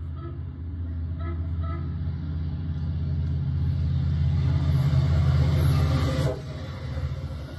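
Metra diesel locomotive approaching and passing close by, its engine hum and wheel rumble growing louder and then dropping off sharply about six seconds in as it goes by, leaving the lighter rumble of the bilevel coaches. A short horn note sounds about a second in.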